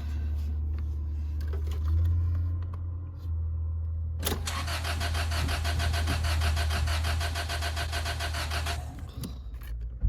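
A car's starter cranks the engine for about four and a half seconds, starting about four seconds in. It stops abruptly without the engine catching, a failed attempt to start a car that won't start. A click comes near the end.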